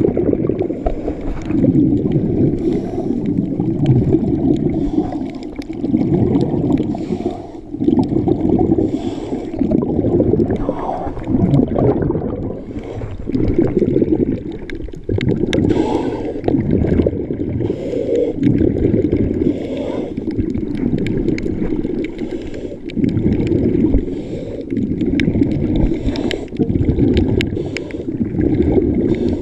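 Muffled water movement heard from underwater in shallow surf: a low sloshing surge that swells and eases every couple of seconds, with scattered faint clicks.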